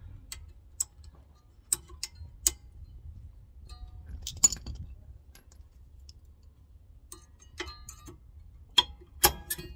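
A dozen or so sharp metallic clicks and clinks, spread unevenly, as a thin steel brake pad retaining clip is seated in the rear caliper bracket of a 2018 Toyota Sienna and pushed home with needle-nose pliers.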